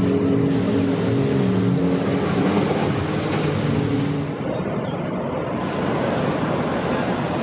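Several jet ski engines revving, their pitch rising and falling over the rush of churned water. After about four seconds the engines drop away, leaving steady wind and water noise.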